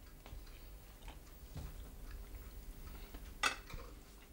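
Faint clinks of cutlery on plates during a meal, with one sharp clink about three and a half seconds in, over a faint low hum.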